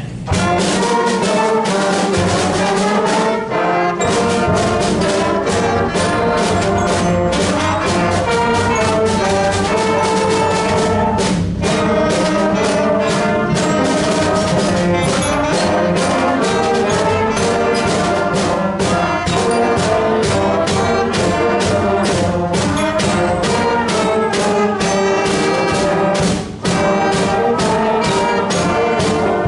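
Student concert band playing an up-tempo piece, brass to the fore over a steady percussion beat, coming in together on the downbeat right after the count-off.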